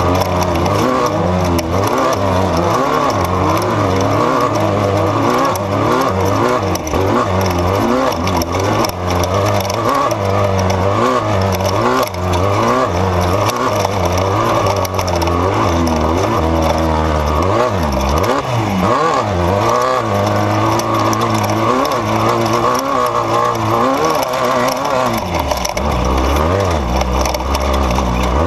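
Off-road race vehicle's engine running hard and revving up and down continuously, with the constant noise of driving over rough desert terrain.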